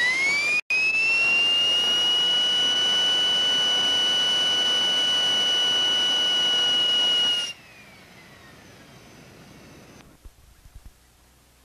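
Simjet 1200 18-pound-thrust model jet turbine whining as it spools up, the pitch rising quickly for about a second and then holding a steady high whine. About seven seconds in the sound drops off sharply, leaving a faint whine that slowly falls in pitch.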